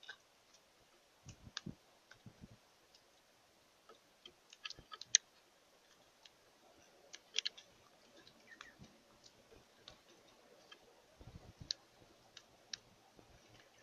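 Faint, irregular clicks and taps, a few sharper ones about five seconds and seven and a half seconds in, over a quiet background.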